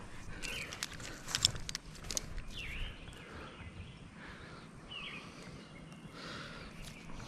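A bird giving a short chirp over and over, about every two and a half seconds, with a few sharp clicks about a second and a half in.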